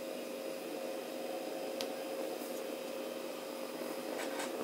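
Steady low room tone: a faint hum with hiss. There is one faint click a little under two seconds in, and a few soft ticks near the end.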